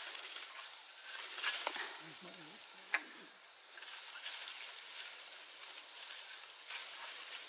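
Steady high-pitched insect drone with light rustle in a tropical tree canopy, and a single sharp tap about three seconds in as a long wooden harvesting pole is worked among the branches.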